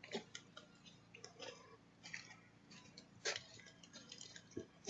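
Faint, irregular clicks and taps over a low steady hum, the loudest click about three seconds in and a dull thump near the end.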